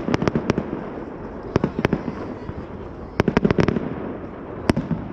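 Aerial fireworks bursting: a quick run of sharp bangs at the start, two more a little before the two-second mark, another rapid cluster a little past three seconds and a single bang near the end, with a continuous rumble and crackle between them.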